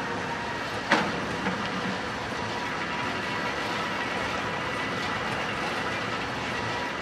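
Construction-site machinery noise: a steady mechanical rumble and hiss with a faint steady whine, and a single sharp clank about a second in.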